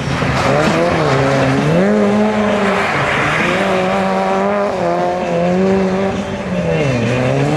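Mitsubishi Lancer Evolution rally car driven hard, its engine revs falling and climbing again several times as the throttle is lifted and reapplied, with tyre squeal.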